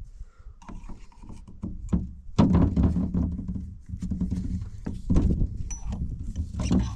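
Small metal clicks and knocks of hand tools and a snap ring on the steel fan drive hub as the ring is worked into its groove. A low steady rumble comes in about two and a half seconds in.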